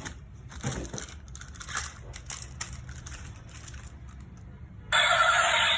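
Packaging being handled during an unboxing: irregular crinkling, rustling and light clicks. Near the end, loud music with singing starts suddenly.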